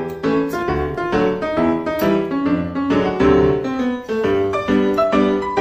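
Background piano music: a quick, evenly paced melody of struck notes over chords, at a steady level.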